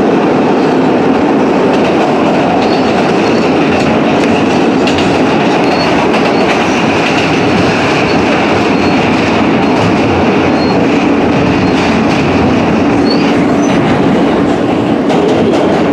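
Alstom R160 subway car running at speed through a tunnel, heard from inside the car: loud, steady noise of steel wheels on rail, with a few short, faint high squeaks.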